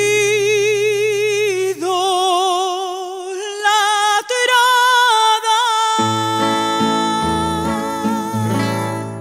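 Woman singing a phrase of long held notes with a wide vibrato, rising to a final held note. From about six seconds in, two acoustic guitars strum chords beneath it.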